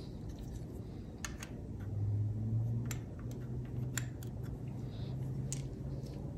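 Small plastic camera mounting parts and accessories clicking and tapping as they are handled and set down on a table, about half a dozen sharp clicks. A low steady hum comes in about two seconds in and runs under them until near the end.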